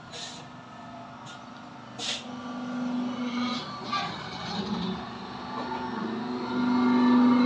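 Sheet-metal workshop noise: a steady low machine hum that swells twice, loudest near the end, with sharp metal knocks about two and four seconds in.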